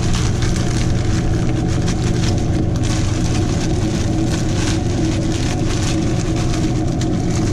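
Pan of tomato-sauced ground beef sizzling and crackling as frozen peas are poured in from a crinkling plastic bag, over a steady low hum.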